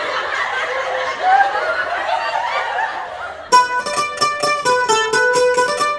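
Several people laughing and chuckling together. About three and a half seconds in, a plucked-string music cue starts abruptly, picking quick repeated notes several times a second.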